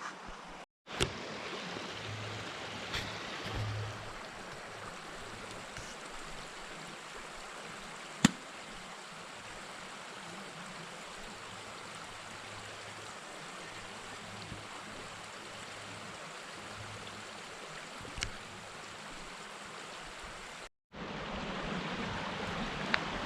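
Steady rush of flowing river water, with a single sharp click about eight seconds in.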